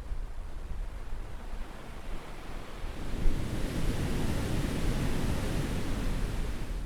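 Caribbean surf: a wave breaking and washing up the beach. The noise of the water swells about three seconds in, holds, and eases off near the end.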